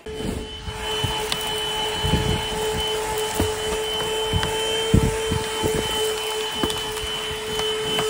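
Corded handheld car vacuum cleaner running with a steady motor whine and suction hiss as its nozzle works over a carpeted car floor mat. A few dull knocks are scattered through it.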